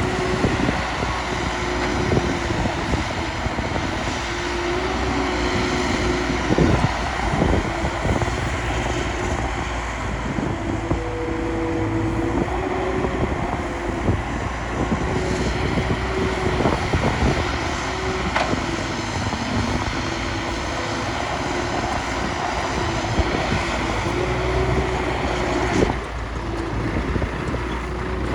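Diesel engines of heavy earthmoving machinery running steadily, with a whining tone that wavers up and down and scattered knocks and clanks. The sound drops abruptly about two seconds before the end.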